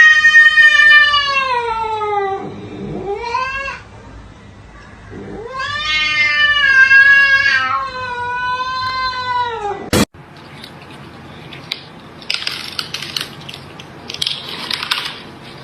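A cat yowling in long, drawn-out cries that bend and fall in pitch, one after another. About ten seconds in, the sound cuts off sharply. Short noisy bursts follow, with no cry in them.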